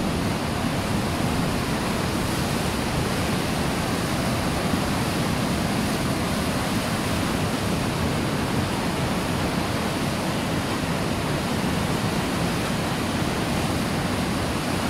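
Muddy river in flood after heavy rain, rushing over rocks: a steady, unbroken noise of turbulent water.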